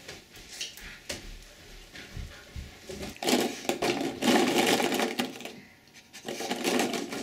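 Hollow plastic prize capsules rattling and clattering against each other and a plastic storage tub as a wolfdog roots through them with its nose. The clatter comes in two bouts, the first about three seconds in and the second near the end.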